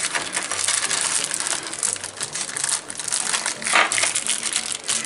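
Plastic packaging of a faucet repair kit crinkling and crackling as it is handled and opened, a steady run of small crackles.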